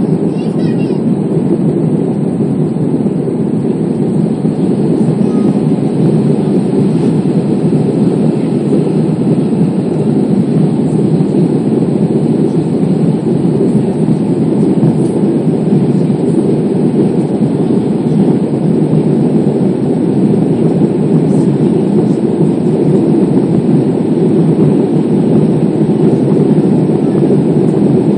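Steady low roar of an Airbus A320's jet engines and rushing air, heard inside the cabin during the climb after takeoff.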